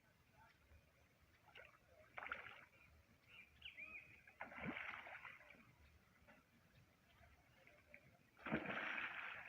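Water splashing in three short bursts, about two, four and a half, and eight and a half seconds in; the last is the loudest.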